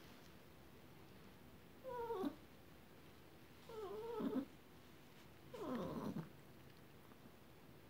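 Small white poodle whining three times, each call about half a second long and about two seconds apart, wavering and falling in pitch.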